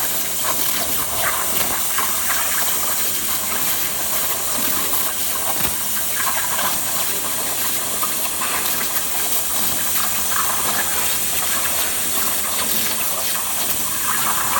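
CNC plasma torch cutting thin steel sheet: a steady, loud hiss of the plasma arc and air jet, unbroken throughout.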